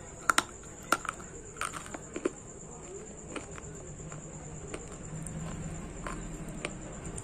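Close-up biting and crunching of a dry chunk of multani mitti (Fuller's earth clay) in the mouth. It opens with a quick run of sharp, loud crunches in the first couple of seconds, then softer chewing crunches come more sparsely.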